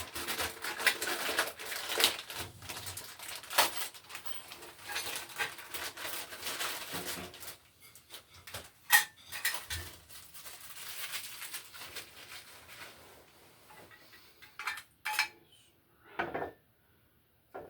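Clatter and clicks of a new electrical box and its hardware being handled: dense rattling for the first half, one sharp click about nine seconds in, then a few scattered knocks near the end.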